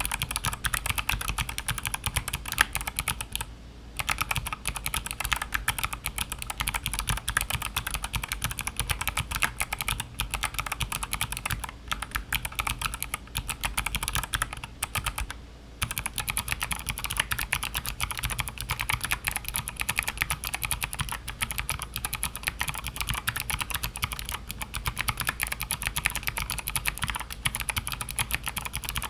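Mechanical keyboard being typed on steadily, a fast run of sharp clicks from clicky switches: Kailh Box Navy switches, changing to NovelKeys Sherbet switches about two-thirds of the way through. Typing pauses briefly twice.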